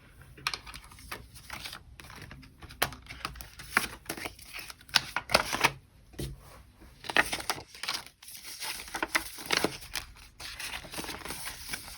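Paper prop banknotes rustling and crinkling as they are handled and stuffed into a cash envelope: an irregular run of sharp paper crackles and flicks.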